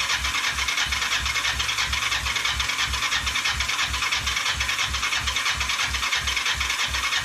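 Kawasaki Ninja 500's parallel-twin engine spun over on its electric starter with the choke on, cranking at about four compression pulses a second without firing, then the starter is released near the end. It cranks but won't start, which the owner puts down to too little fuel.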